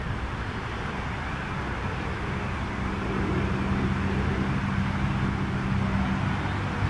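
A motor vehicle's engine running nearby, a steady low hum over outdoor rumble that grows louder and takes on a steady drone about two and a half seconds in.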